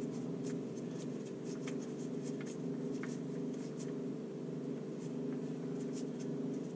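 Faint scratchy ticks and rubbing of fingers turning a car's oil drain plug out of the oil pan by hand, on its last threads, over a steady low hum.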